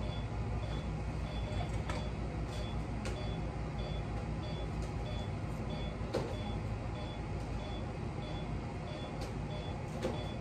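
Steady low machine hum with a patient monitor beeping about twice a second, pulsing with the anaesthetised animal's heartbeat, and a few faint clicks of dental instruments.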